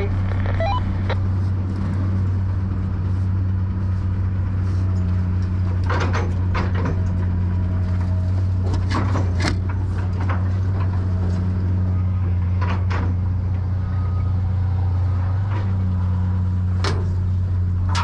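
An engine running at a steady speed, with scattered knocks and clatters over it.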